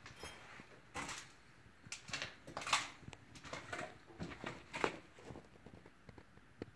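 Scattered soft rustles and light knocks, with short swells of noise a few times about a second apart.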